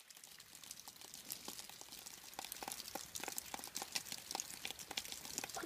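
Faint, irregular small clicks and crackles, sparse at first and growing busier from about two seconds in.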